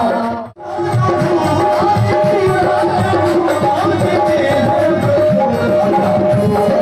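Live qawwali music with tabla drumming under held melodic notes. The sound drops out sharply for a moment about half a second in, then the music resumes.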